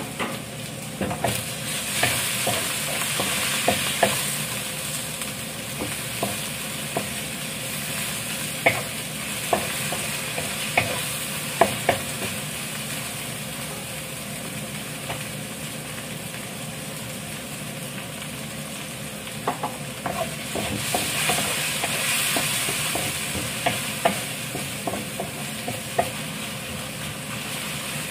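Garlic, onion and tomato sizzling in hot oil in a pan, with a steady frying hiss that swells louder twice. A wooden spatula stirring the pan gives sharp clicks and scrapes now and then.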